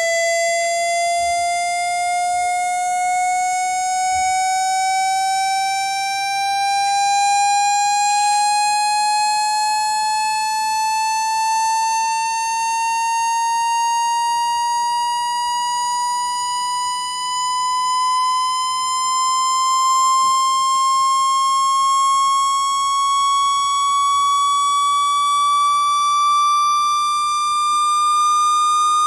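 Generated speaker-cleaning tone, a buzzy electronic tone with overtones, gliding slowly upward in pitch at a steady loudness. It is a water-ejection sweep played at full volume to vibrate water out of a phone or earphone speaker.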